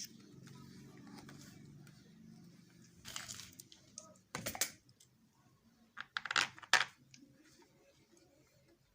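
Short bursts of light clicking and clinking from small hard objects being handled, in three clusters about three, four and a half, and six seconds in, over a faint low hum in the first two seconds.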